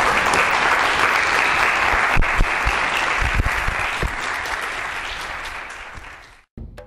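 Audience applauding, a dense even clapping that tapers off over the last few seconds and then cuts off abruptly.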